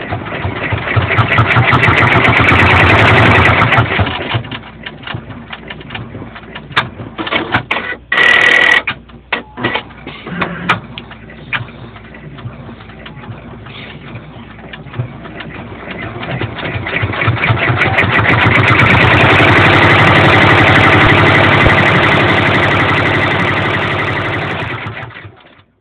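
Brother PR600 multi-needle embroidery machine stitching: a rapid run of needle strokes that speeds up to full pace and slows again twice, with slower irregular clicking in between. Near the middle there is a short loud sound with a steady tone.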